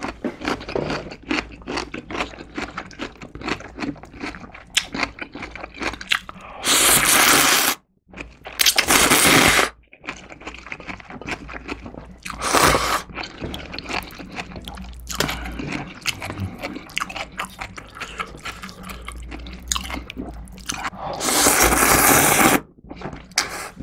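A person eating gochujang-stew ramen close to the microphone: steady wet chewing and smacking clicks, broken by four loud slurps. Two long slurps come about a third of the way in, a short slurp of broth from a ladle comes about halfway, and a long noodle slurp comes near the end.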